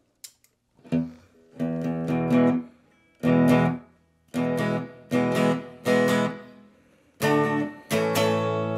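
Electric guitar strumming about eight short chords through a Roland DEP-5 effects processor and amp. It is clean, with no dropouts, the sign of working new bypass relays. The last chord, near the end, rings on with the unit's Bright Room reverb.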